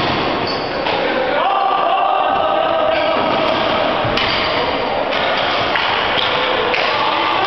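Indoor box lacrosse game: players' shouts and calls echoing in the arena, with sticks and ball knocking and a sharp knock about four seconds in.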